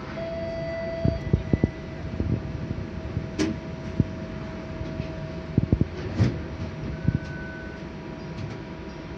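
Inside a stationary TTC streetcar: a steady electrical hum, a short electronic beep at the start and a shorter, higher beep about seven seconds in. Two clusters of knocks and clunks come at about one second and about six seconds in.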